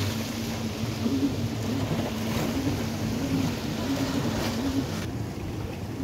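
Sea washing against a rocky shore with wind on the microphone: a steady rushing wash, with a faint wavering low hum underneath.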